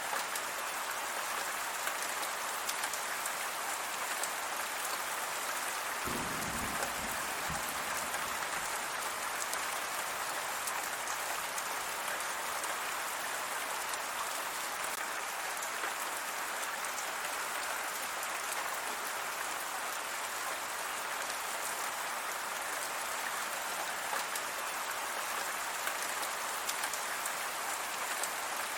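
Steady rain falling, a dense even hiss of drops on surfaces with fine scattered patters. A brief low rumble comes about six seconds in.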